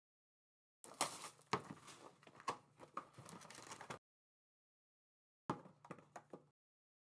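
Trading cards and plastic card holders being handled on a table: a run of light clicks and taps lasting about three seconds, then a shorter run about five and a half seconds in.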